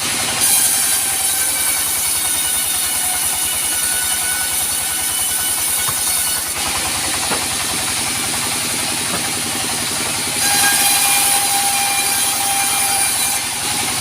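Band sawmill running with a steady, rapid mechanical rhythm, and a louder high hiss from the blade cutting teak in two stretches: through the first half and again near the end.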